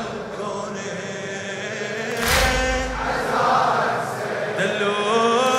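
Large crowd of male mourners chanting a Shia noha refrain in unison. The crowd's chest-beating (latm) lands together as one heavy thud about two seconds in and again at the end. A single voice rises over the chant shortly before the last beat.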